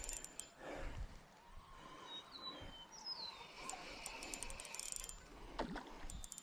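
Faint clicking of a spinning reel as its handle is cranked to retrieve the bait. A couple of short falling bird chirps come in midway.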